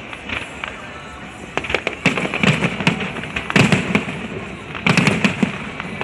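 Aerial fireworks bursting in rapid clusters of sharp bangs, the heaviest volleys about two, three and a half, and five seconds in.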